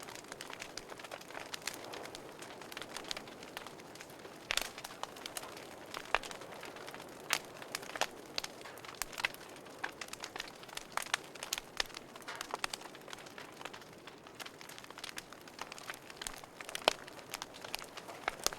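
Wood fire burning in a fireplace, crackling with irregular sharp pops and snaps over a soft steady hiss; one pop near the end is louder than the rest.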